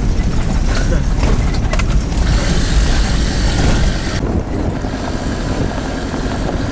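SUV driving off-road over a rutted dirt trail, heard from inside the cab: a steady low rumble of engine, tyres and jolting body. A rushing hiss rises over it for about two seconds in the middle.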